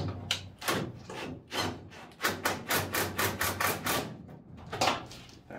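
Cordless impact driver with a 9/16-inch socket driving a 3/8-inch lag screw into wood, hammering in a run of sharp clicks over its motor hum. The clicks come fastest, about five a second, in the middle.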